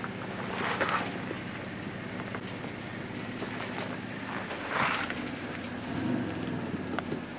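Off-road vehicle engine running steadily, with two louder rushing surges, about a second in and about five seconds in.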